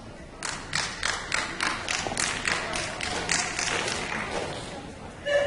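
Audience hands clapping in an even run of about three claps a second, starting about half a second in and stopping after about four seconds.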